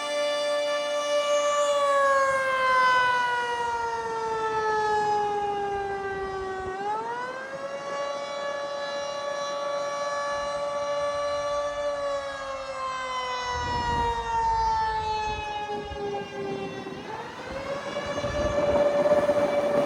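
Electromechanical outdoor warning siren sounding in attack mode: its tone holds, winds down slowly over about five seconds, then climbs quickly back up, twice, with a fainter lower tone underneath.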